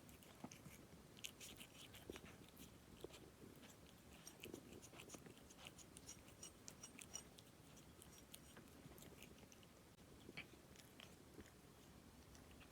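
Pet cat faintly chewing a snack, with many small irregular clicks from its mouth.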